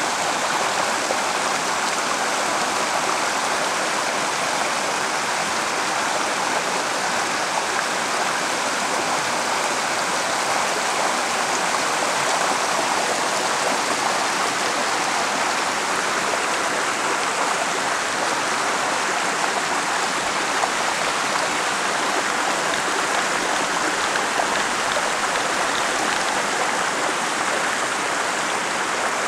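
Shallow rocky stream running over boulders and stones in small white-water riffles: a steady, unbroken rush of water.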